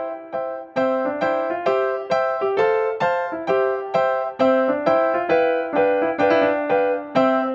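Background music: a gentle keyboard melody of evenly paced single notes, about three a second, each struck and fading.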